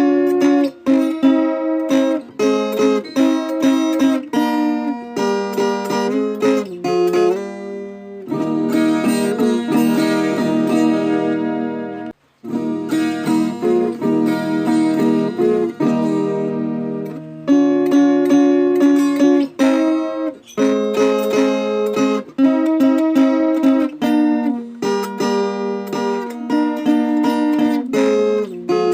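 Viola caipira, the Brazilian ten-string folk guitar, playing a plucked melody, with longer ringing chords through the middle and a momentary break about twelve seconds in.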